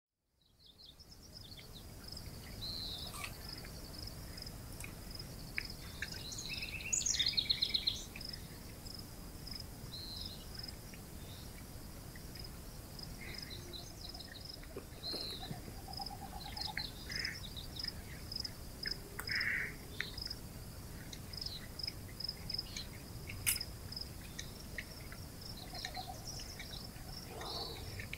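Evening outdoor ambience: crickets chirping in a steady, evenly pulsed high trill, with birds calling on and off over it, one burst of calls louder about seven seconds in. The sound fades in over the first second.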